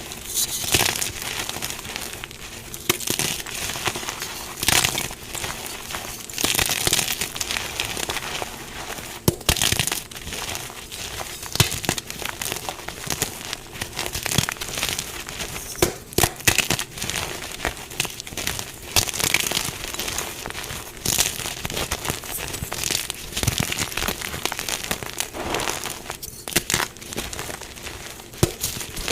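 Dyed gym chalk blocks being crushed, a dense, irregular crunching and crackling with frequent sharp snaps as the blocks break and crumble.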